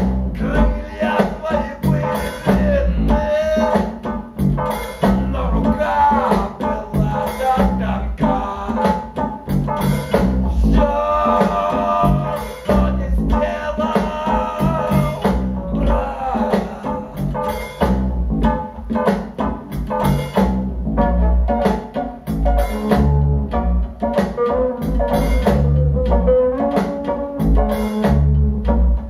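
Rock music with drum kit, bass and guitar, played back through Audio Note AN-E/SPe HE loudspeakers and heard in the listening room, with a steady beat.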